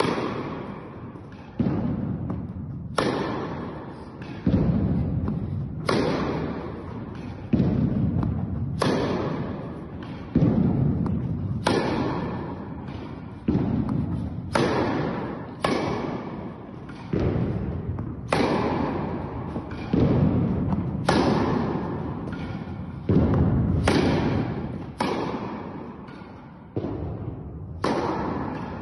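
Tennis ball struck by racket again and again during a rally, a sharp hit about every second or two. Each hit rings on in the echo of a large indoor tennis hall.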